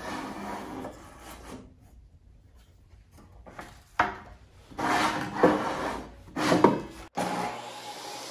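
Thick wooden boards sliding and scraping across the metal top of a table saw and against its fence, with a few knocks as they are shifted and set down; the saw is not running. Several separate scrapes, with a quiet stretch in the middle.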